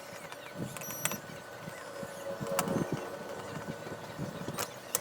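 Small electric screwdriver running in short bursts to back out the screws holding a TV power supply board, with a few sharp clicks from the screws and board being handled.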